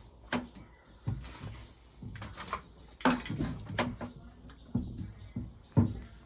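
Metal parts and tools clinking and clunking as they are handled and set down: about eight separate knocks, uneven in spacing.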